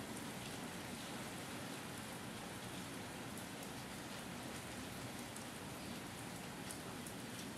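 Light drizzle falling steadily: an even hiss of rain with faint drop ticks here and there.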